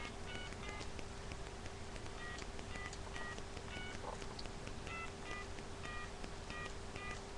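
A telephone keypad being dialed: a string of short two-tone touch-tone beeps, one per key press, spaced unevenly as a number is punched in, over a faint steady hum.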